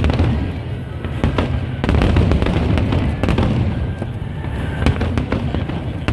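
Aerial fireworks bursting in quick succession: deep booms with crackling bangs between them, a big burst every second and a half to two seconds. Music plays along underneath.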